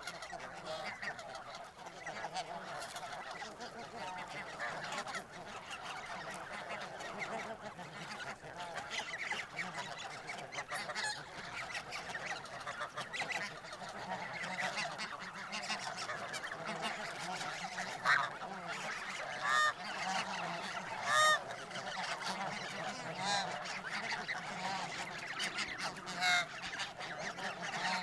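A flock of snow geese calling: a continuous chatter of honks from many birds, with a few louder single honks standing out in the second half.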